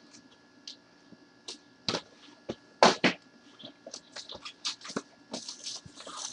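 Trading-card boxes and a pack of cards being handled with gloved hands: scattered rustles and light clicks of cardboard and wrapping, with sharper knocks about two and three seconds in.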